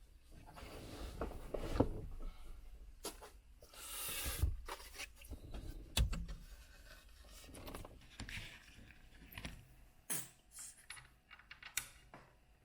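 Irregular scraping and rustling with scattered sharp clicks, as of parts being handled at close range; one click about halfway through is the loudest.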